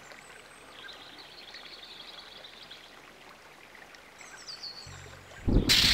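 Faint outdoor nature ambience with a few thin, high bird calls, some falling in pitch. A sudden loud burst of noise comes in near the end.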